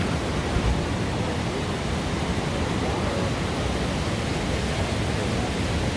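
Floodwater of a swollen river rushing past steadily, a constant even noise of fast-moving water.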